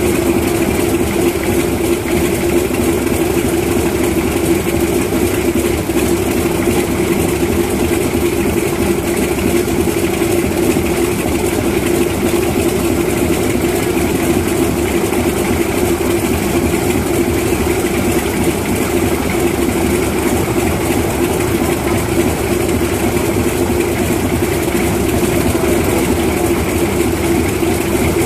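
Antonov An-2's nine-cylinder radial engine running steadily with its propeller turning, a steady even hum that does not change speed. The engine has been restarted after 17 years out of service.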